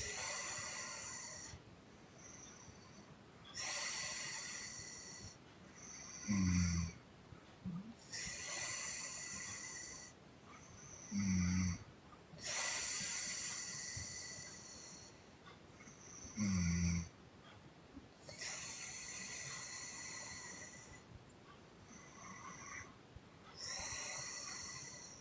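A sleeping woman breathing out in long airy puffs roughly every four to five seconds, with three short low snores between them that are the loudest sounds.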